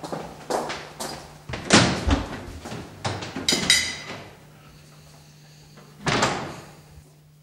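Knocks and clatter of people getting up from a dinner table, with chairs and crockery, over the first few seconds. After a short lull comes a single loud thud of a door shutting about six seconds in, under a steady electrical hum.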